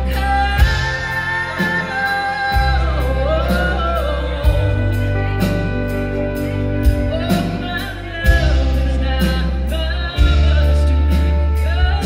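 Live band music: singing over bass, electric guitar, horns and drums with a steady beat.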